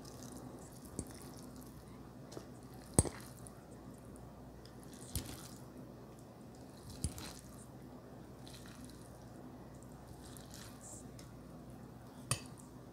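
Close-miked wet, squishy sounds of a fork twisting and lifting sauced noodles in a glass bowl, with a few sharp clicks of the fork against the bowl, the loudest about three seconds in.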